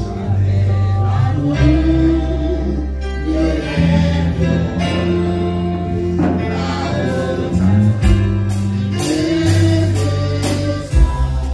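Gospel hymn sung by several voices over instrumental backing with long held bass notes. Sharp percussion strikes join in over the last few seconds.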